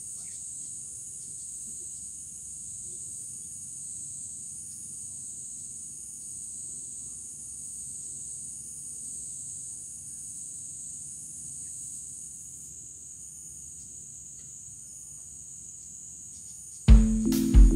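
Steady high-pitched insect chorus, wavering gently in level, over a faint low rumble. Near the end, loud plucked-guitar music cuts in abruptly.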